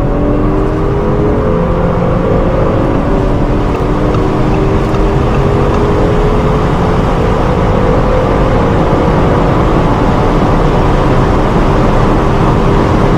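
Car engine under hard acceleration in a high gear, its pitch climbing slowly and steadily with no gear change, over heavy road and wind rumble.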